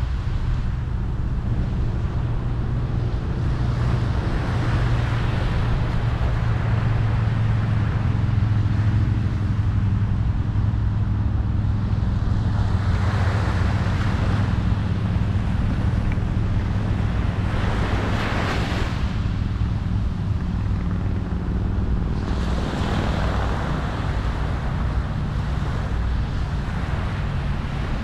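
Ocean waves washing onto a beach, with three louder surges of surf in the second half, over a steady low rumble.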